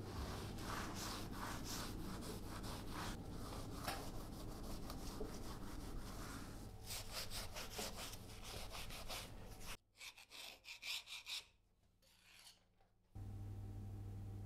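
A cloth rag rubbed back and forth over the oily cast-iron guideways of a milling machine saddle in repeated wiping strokes. The strokes turn short and broken near the end, then give way to a steady low hum.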